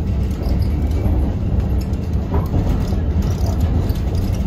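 Steady low running noise of a tram in motion, heard from inside the passenger car.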